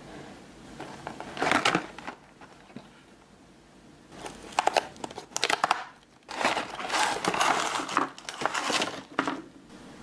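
A paperboard sweets box being torn open by hand, its flap pulled back in three spells of crinkling and tearing, the longest in the second half.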